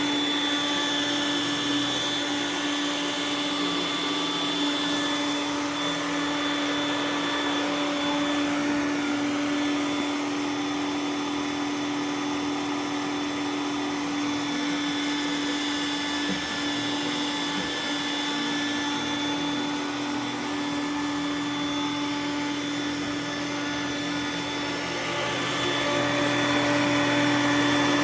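Roomba s9 robot vacuum running steadily: a continuous motor hum with a thin high whine over the suction noise, growing a little louder about three seconds before the end.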